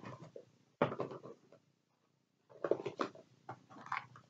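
Knives and their packaging being handled on a table: scattered short knocks, clicks and rustles, one clatter about a second in and a denser run of them from about two and a half to four seconds in.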